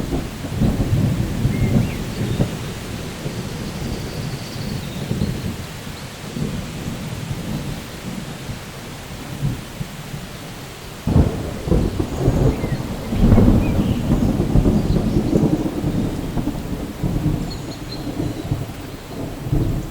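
Thunderstorm: rolling thunder rumbling over steady rain, dying down in the middle, then a sharp crack about eleven seconds in, followed by a long, loud rumble.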